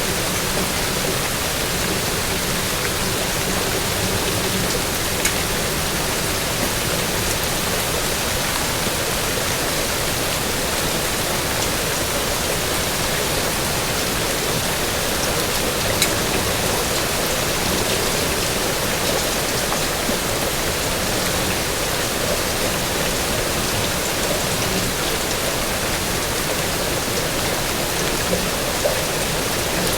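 Steady rain, an even hiss of falling water with a few single sharp drop ticks.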